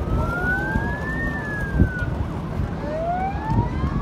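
Wailing siren, its pitch rising slowly for about a second and a half and then falling, with fainter overlapping siren glides, over a steady low rumble.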